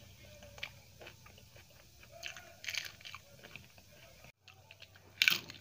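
Close-miked eating: quiet chewing with small mouth clicks, then a loud crisp crunch near the end as papad is bitten.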